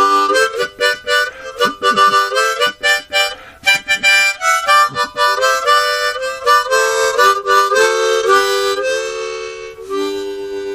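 Background music: a fast, reedy melody of short notes that settles into a held chord near the end and begins to fade.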